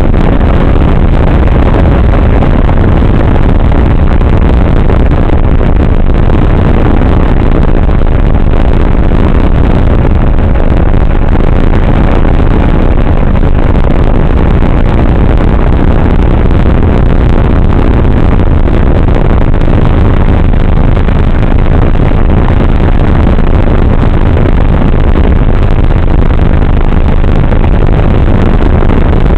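Steady, loud rush of wind and propeller noise from a model airplane in flight, picked up and overdriven by its onboard camera's microphone.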